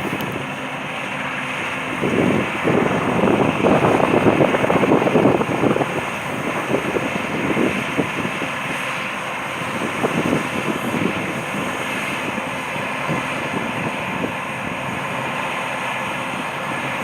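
Combine harvester running steadily, with gusts of wind buffeting the microphone.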